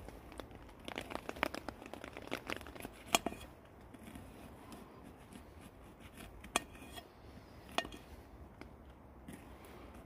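Knife cutting an onion on an upturned metal pan, the blade tapping and knocking against the pan's surface: a run of quick knocks about a second in, then single knocks near the middle and later on.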